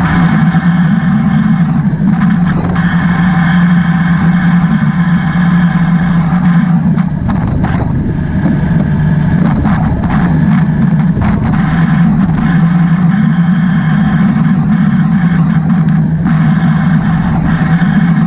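Motorbike engine running at a fairly steady pitch while riding, with wind rushing over the microphone.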